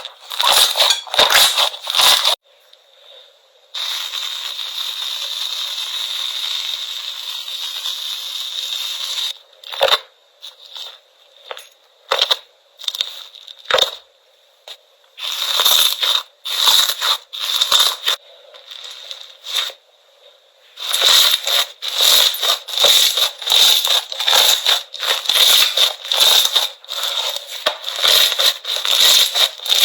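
Slime being pressed and squeezed by hand, giving rapid crackling and popping clicks that come in runs, sparse in places and dense near the end. A steady hiss runs for about five seconds early on.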